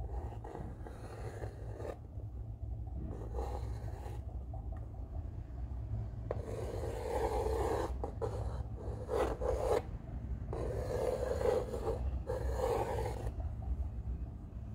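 Pencil lead of a drawing compass scraping over the face of a round MDF board as the compass is swung around, in a series of scratchy strokes that grow stronger from about six seconds in and stop near the end. A steady low hum runs underneath.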